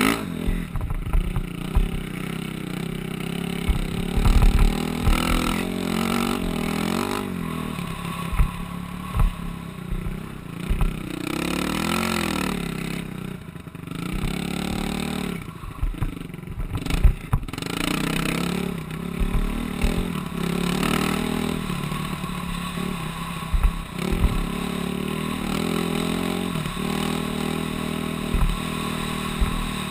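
Off-road vehicle's engine running hard and revving up and down while riding over sand dunes and a rough dirt track, with low thumps and rattles from the bumpy ground.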